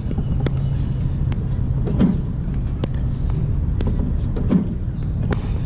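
Spinshot pickleball ball machine firing balls about every two and a half seconds, each launch a low thump, among sharp pocks of paddle volleys and ball bounces, over a steady low rumble.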